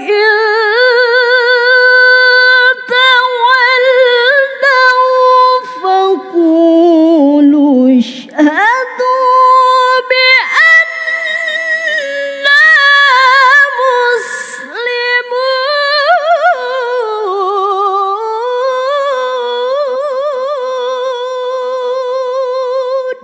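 A woman reciting the Quran in melodic tilawah style, drawing out long held notes with fast wavering ornaments. Her pitch sinks low about eight seconds in, then climbs back high, with a few short breaths between phrases.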